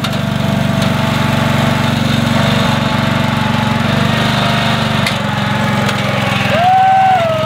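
Small engine of a homemade mini tractor running steadily as the tractor is driven off. A brief high rising-and-falling tone comes near the end.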